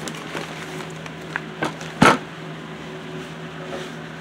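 Brown paper mailer envelope being handled and opened, with light paper rustles and a couple of small taps, then one loud, short noise about two seconds in as the box comes out. A steady low hum runs underneath.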